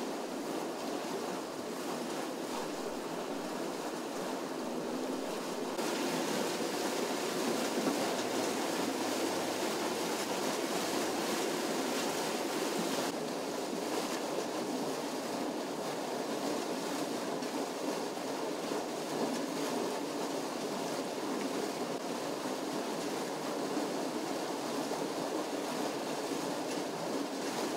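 Water gushing up out of the ground at a street sinkhole and splashing onto the flooded pavement: a steady rushing noise, a little louder and hissier from about six to thirteen seconds in.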